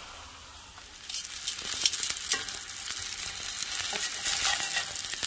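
Jalapeño, tomato, onion and garlic cloves sizzling as they char in a stainless steel skillet, with small clicks of metal tongs turning them against the pan. The sizzle grows louder about a second in.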